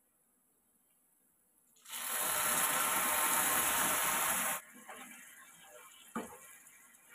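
Milk poured into a hot non-stick pan of caramelised bread halwa, splashing and sizzling loudly for about three seconds from about two seconds in, then cutting off. After that, quieter bubbling with a metal ladle scraping and knocking against the pan.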